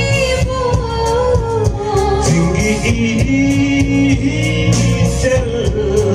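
Live Manipuri song sung into microphones over backing music, amplified through a PA: a steady, loud mix of sung melody, instruments and bass.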